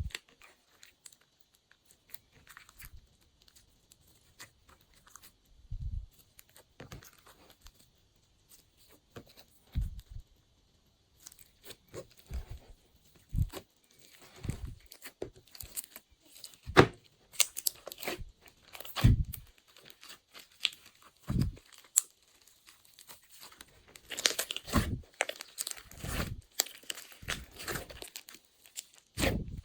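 Hands squishing and stretching glossy slime, making irregular sticky pops and crackles that grow busier and louder in the second half.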